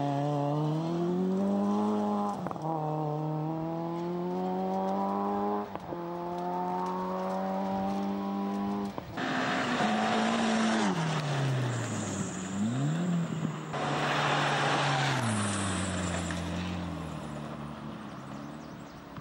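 A small hatchback rally car accelerating hard on gravel, its engine revving up and dropping back at two gear changes. Then a Ford Escort Cosworth rally car with its turbocharged four-cylinder comes up the gravel stage with a rush of tyre and stone noise, lifts briefly and picks up again, and passes by, its engine note falling and fading away.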